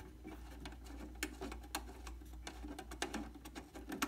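Phillips screwdriver backing a small screw out of a circuit board: faint, irregular small clicks and scrapes of the tip turning in the screw head, over a steady low hum.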